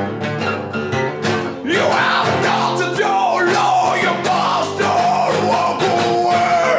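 Live rock band playing, with guitar and drums, and a lead line that bends and glides between long held notes.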